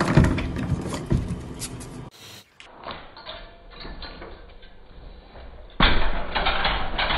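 Scattered light knocks and scrapes, then from about two-thirds of the way in a loud rattling clatter from a white metal baby gate. The gate swings open as a cat climbs on it.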